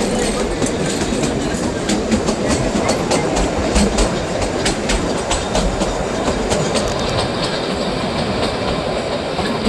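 Kalka–Shimla narrow-gauge toy train running along the track: a steady rumble of the carriages with many sharp wheel clicks over the rails.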